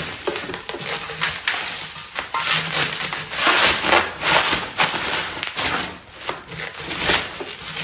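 Plastic bubble wrap crinkling and crackling in irregular bursts as it is pulled and unwound from a wrapped vase.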